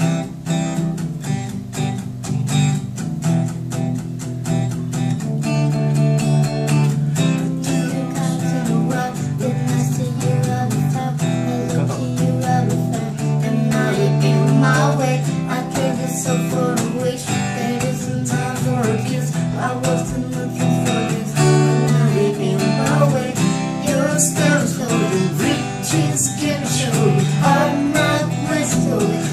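Acoustic guitar strummed in a steady rhythm, playing the instrumental intro to a pop song.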